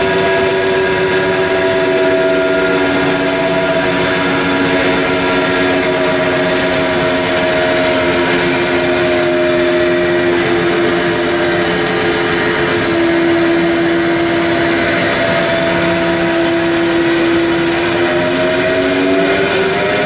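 Okamoto Grind-X CNC rotary surface grinder running under power: a steady mechanical hum and hiss with several whining tones that drift slowly in pitch and rise near the end.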